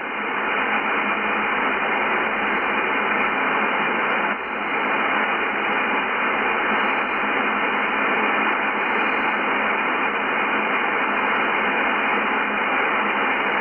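Steady shortwave band noise hiss from a Yaesu FTdx10 receiver in upper sideband on the 20 m amateur band, with no clear voice on the frequency. It is thin and cut off sharply at the top by the receiver's voice filter, with a brief dip about four and a half seconds in.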